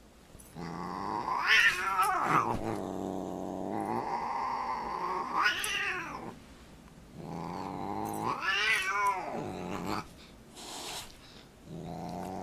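Siamese cat yowling and growling in long, drawn-out calls that climb in pitch and fall again, about three of them with short pauses between, while it swats at a dog.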